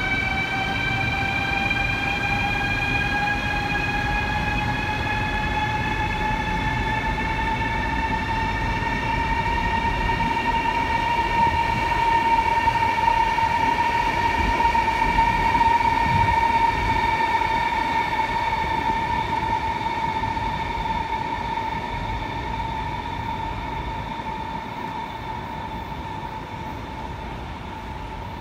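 CRH high-speed electric train accelerating away, its traction motors' whine rising in pitch over the first several seconds and then holding steady over a low rumble. It grows louder, then fades toward the end as the train draws away.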